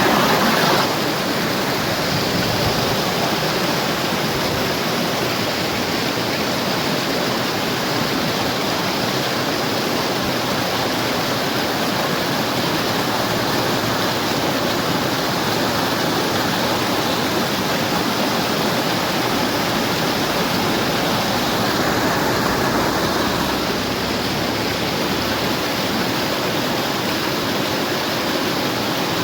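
A steady, even rushing noise that starts abruptly and holds level throughout, with no tone or rhythm in it.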